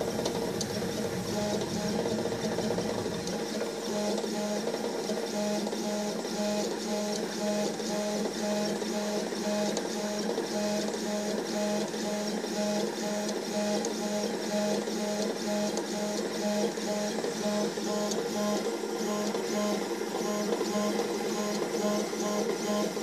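Stepper motors of a 3 W blue diode laser engraver driving the head back and forth while engraving an image, a pitched whine that pulses in an even rhythm.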